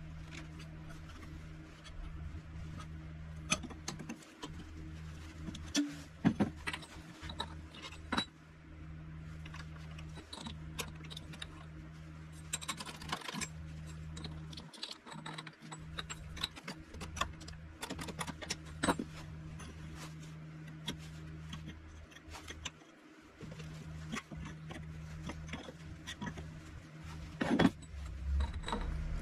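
Small metal parts and tools clinking and tapping as they are handled, in scattered sharp clicks, over a steady low hum that cuts out briefly twice.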